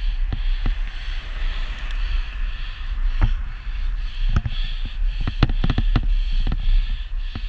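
Wind rumbling on a helmet camera's microphone as a bicycle is ridden along a road, with a series of sharp knocks and rattles, most of them bunched between about four and six and a half seconds in.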